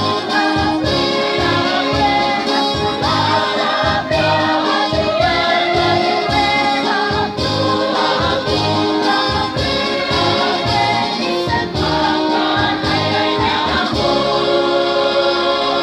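Mixed choir singing in several parts, closing on a long held chord near the end.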